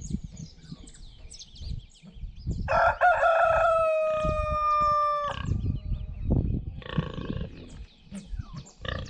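A rooster crows once, starting about three seconds in, ending on a long held note that lasts about two seconds.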